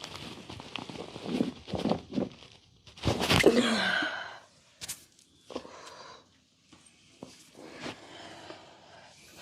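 Hands massaging the head and upper body: rubbing and slapping on skin and hair, with short clicks. A brief voice sound, the loudest moment, comes a little over three seconds in.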